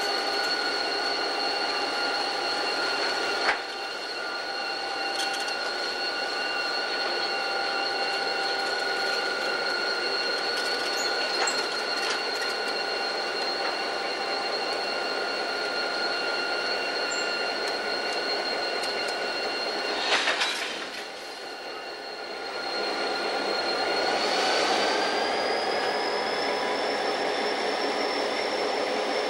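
Steady, high-pitched metallic squeal of locomotive wheels on the rails as the train's diesel locomotives roll slowly past, its pitch rising a little about three-quarters of the way through. A sharp knock comes about three seconds in, and a short rush of noise comes around twenty seconds.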